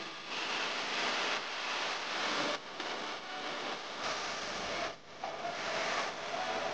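A steady rushing noise with no clear pitch, dipping briefly about two and a half and five seconds in.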